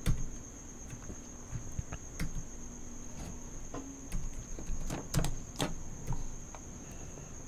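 Scattered clicks of a computer mouse, a dozen or so at uneven intervals, over a steady high-pitched whine and a faint low hum.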